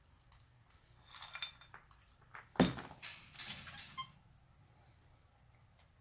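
A capuchin monkey eating noisily out of his feeding pan: scattered clinks and clicks of food and hands against the dish, one sharp clank about two and a half seconds in, then a quick run of clicks.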